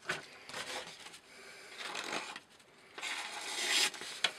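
Sheet of paper rustling and scraping as a Glock FM 78 knife blade is drawn through it in several strokes, the longest about three seconds in, with a sharp click near the end. It is a paper-slicing test of how much edge is left after about 200 cuts, and the dulled blade only bites partway along.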